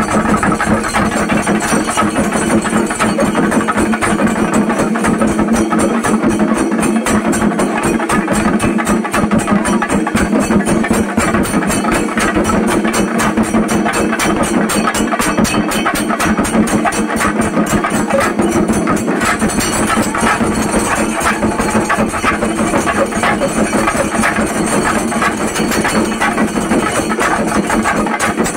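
A singarimelam ensemble of chenda drums beaten with sticks, playing a fast, dense, unbroken rhythm.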